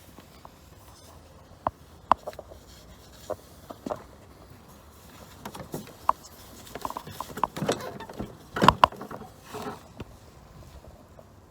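Scattered sharp clicks and knocks of metal tools and parts being handled during motorcycle front-end work, growing into a denser run of knocks about seven to nine seconds in.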